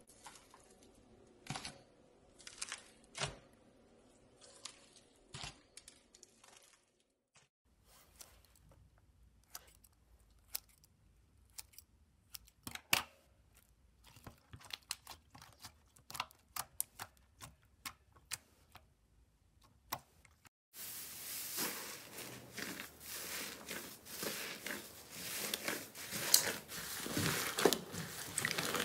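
Slime being squeezed, poked and stretched by hand, giving scattered sticky clicks and pops. In the last part it turns into dense, louder crackling, typical of crunchy slime.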